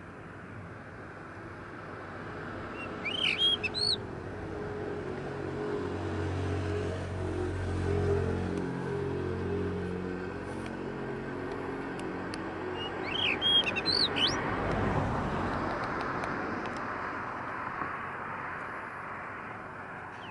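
Blue rock thrush giving two short phrases of quick whistled notes that rise and fall, about three seconds in and again about thirteen seconds in. Between the phrases a motor vehicle's engine hum swells and passes, over a steady background rush.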